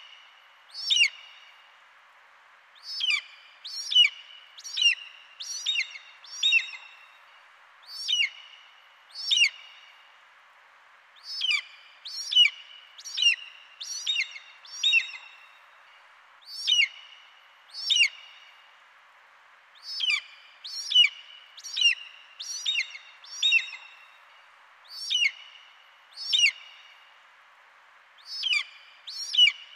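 Bald eagle calling: short, high, thin piping notes that sweep downward. Some come singly and others in quick runs of four to six, over a faint steady hiss.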